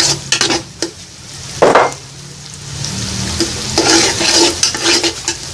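Minced garlic and onion sautéing in melted butter in a large aluminium pot, sizzling while a flat spatula stirs and scrapes against the pot, with one louder scrape about a second and a half in. The sizzle thickens over the last couple of seconds.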